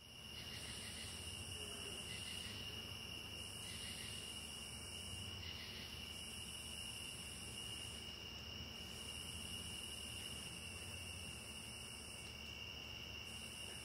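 Faint, insect-like high-pitched buzzing: a steady thin whine with a higher hiss that swells in and drops out every couple of seconds.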